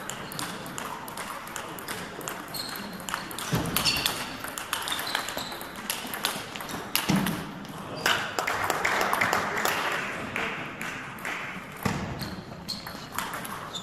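Table tennis rally: the ball clicks sharply off bats and table in a quick series of hits. About eight seconds in, spectator noise rises after the point.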